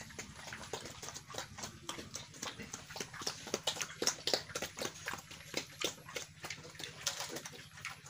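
Pigs eating wet feed from shallow bowls: a dense run of quick, irregular smacking clicks from their mouths in the mash, several a second.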